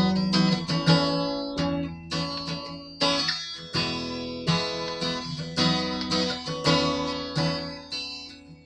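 Solo acoustic guitar strumming the opening chords of a song, a chord struck about once a second and left to ring, dying down near the end.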